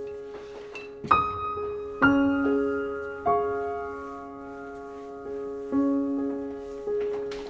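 Slow, gentle background piano music: single notes and soft chords struck about once a second, each ringing and fading away.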